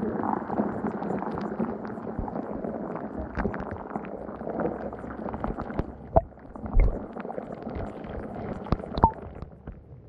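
Muffled underwater sound picked up by a camera submerged in shallow lake water: a dull, murky rumble with scattered clicks and knocks, and a low thump about seven seconds in.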